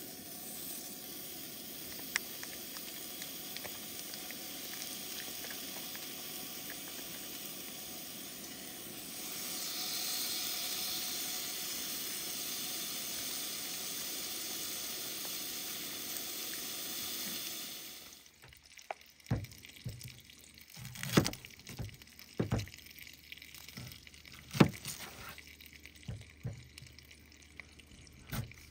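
Bacon sizzling in a cast-iron pan on a camp stove, a steady hiss that grows louder about a third of the way in. It cuts off suddenly about two-thirds of the way through, and a run of sharp knocks and taps on a table follows.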